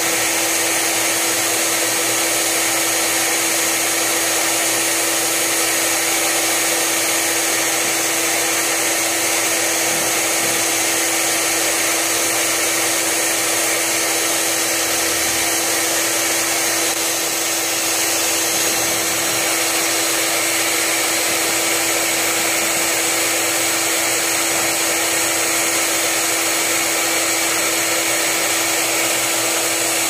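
Small hose-fed rotary polisher running steadily with its pad on a car door handle, polishing out fingernail scratches in the paint: an unbroken steady hum with a strong hiss.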